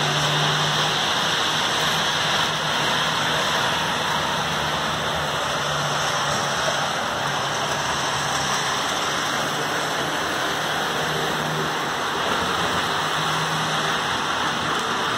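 HO scale model trains running on the layout: a steady rolling rush of wheels on track, with a low hum that swells and fades a few times.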